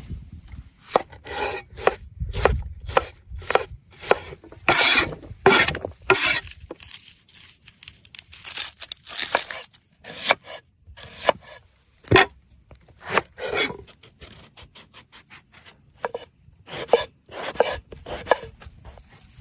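A knife chopping and cutting food on a board in irregular strokes. Several strokes are longer and scraping, and there is a quicker run of short chops near the end.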